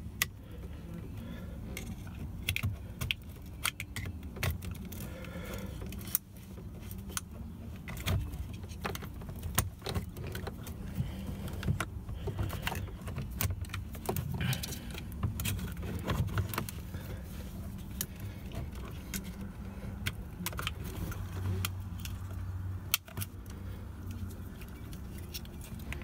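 Scattered plastic clicks, taps and rattles as a car's master power window switch is pried out of its plastic door bezel with a screwdriver and handled, its locking tabs and housing knocking. A steady low hum runs underneath.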